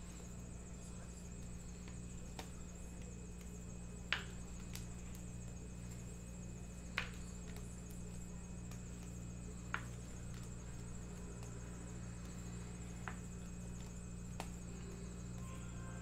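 Sports trading cards being handled and set down on a table mat: about half a dozen light, sharp clicks a few seconds apart, over a steady electrical hum.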